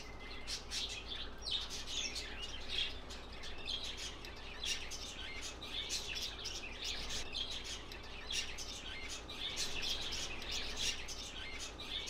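A flock of small caged birds chirping and twittering continuously, many short high calls overlapping.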